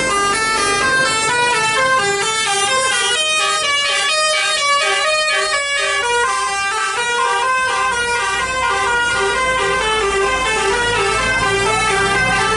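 Basuri telolet bus horn playing a fast melody: several horn tones sounding together and stepping from note to note several times a second.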